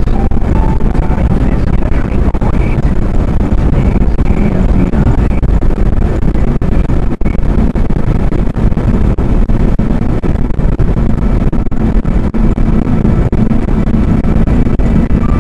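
Loud, steady road noise and engine hum inside a car's cabin at highway speed.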